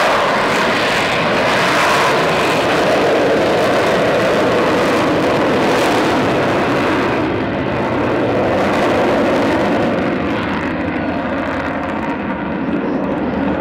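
Avro Vulcan B2 XH558's four Olympus turbojets at high power as the delta bomber climbs steeply away just after takeoff, undercarriage still down: a loud, steady jet roar. The upper hiss fades from about seven seconds in as the aircraft draws away.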